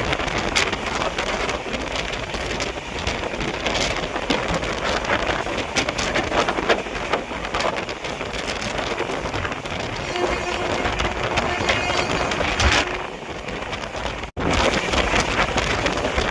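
Steady heavy rain: a dense patter with many small drop hits, broken by a sudden brief dropout near the end.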